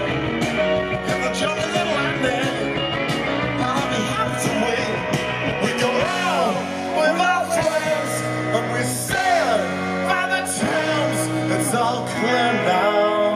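Live rock band playing: electric guitars and drums with a male singer's voice over them, heard through the stage PA.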